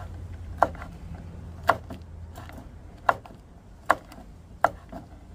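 Chef's knife chopping a hot pepper on a wooden cutting board: about five sharp knocks of the blade against the board, spaced roughly a second apart.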